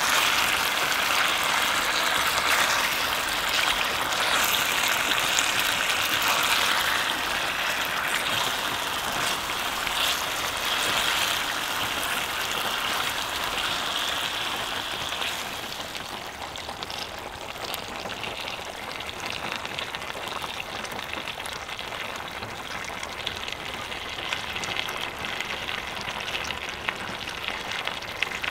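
Chicken and pineapple in sauce sizzling and bubbling in a metal camp pot. The sizzle dies down about halfway through.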